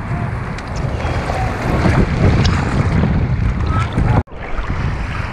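Seawater sloshing and surf washing around a camera held at the waterline, with wind buffeting the microphone. The sound cuts out sharply for a moment about four seconds in.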